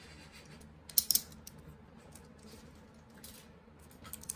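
Trading cards being handled and flipped through by hand: a few sharp clicks and rustles, loudest about a second in, with smaller ones near the end.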